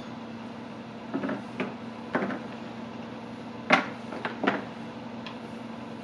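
About six short knocks and taps spread over a few seconds, the loudest two near the middle, as slices of chilled cheese cracker dough are gathered off a plastic cutting board and set down on a baking sheet. A faint steady hum lies under them.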